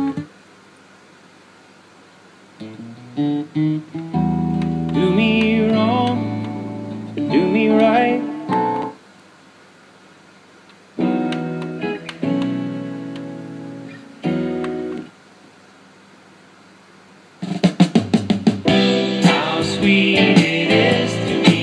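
Guitar music with some singing playing from the RCA RS2664 compact stereo's CD player in several snatches a few seconds long. Each snatch cuts off into a silent gap as the next track is selected, then the music starts again.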